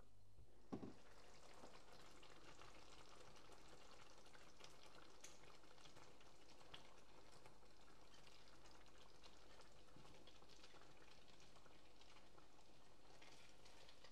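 Faint stirring of a hot, milky leek sauce in a non-stick pan with a silicone spatula, with soft sizzling and small scraping ticks throughout. One soft knock comes about a second in.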